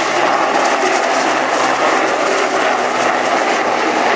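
Westland Sea King HAR.3A helicopter flying past low and close, its twin turboshaft engines and rotors running steadily.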